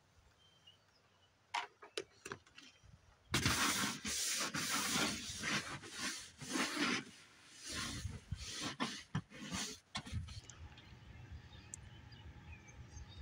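Long-handled scrub brush scrubbing the side of a mobile home in rough strokes with short gaps, for several seconds after a few light clicks. The scrubbing stops near the end.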